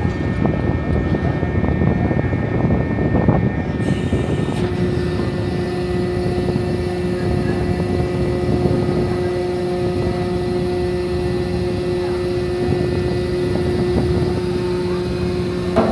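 Loud, steady low rumble of a passenger ferry under way. A steady hum joins about four seconds in and cuts off near the end.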